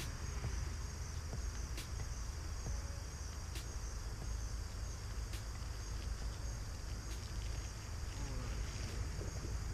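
Crickets or similar insects chirping steadily in a high, even chorus, over a steady low rumble. A faint tick comes about every two seconds.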